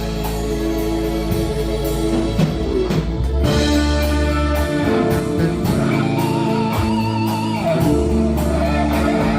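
Rock music with electric guitar, bass and drums, a guitar line with vibrato coming in about seven seconds in.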